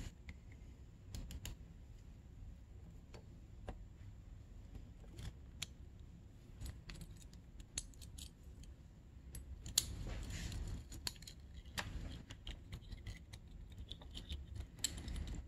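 Scattered light clicks and taps of hands handling a hose and small parts on a dirt bike engine, with a brief rustle about ten seconds in.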